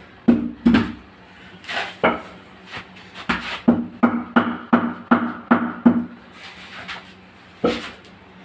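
Series of sharp knocks on ceramic wall tiles being tapped into fresh mortar with a piece of wood, two to three taps a second for a few seconds, with a few lone knocks before and after.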